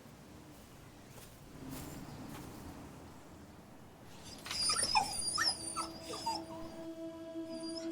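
A puppy whimpering: a run of high, wavering whines about halfway through, after a faint quiet start. Soft held music notes come in underneath.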